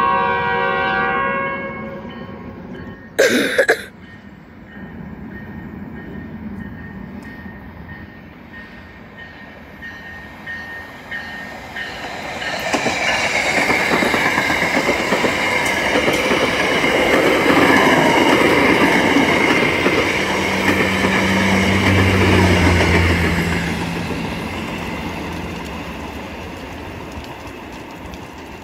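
VRE commuter train sounding its horn, a chord of steady tones that stops about a second in, followed by a sharp knock a couple of seconds later. The train then runs through at speed: a building rumble and rattle of bilevel passenger cars over the rails with a steady high whine. A diesel locomotive's engine hum comes in low near the end as it passes, then the noise fades away.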